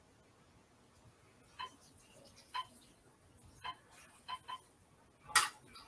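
Serving utensils clicking against a dish while pasta is plated: about five light, irregular clicks, then a louder clack near the end.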